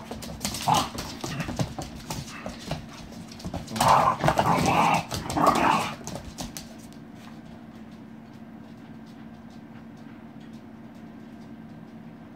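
Puppies play-fighting: bursts of growls and yips, with claws clicking and scrabbling on a wooden floor, loudest in three bursts around four to six seconds in. About six seconds in the play stops and only a steady low hum is left.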